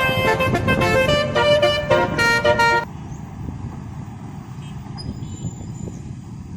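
Telolet basuri multi-tone horn playing a quick tune of changing notes, cutting off abruptly just under three seconds in. A low rumble continues after it.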